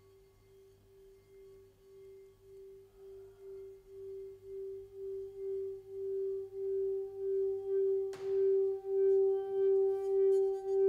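Metal singing bowl rubbed around its rim with a wooden stick: one steady humming tone that pulses about twice a second and swells steadily louder as the bowl builds up, with a higher overtone joining halfway through. A brief knock sounds about eight seconds in.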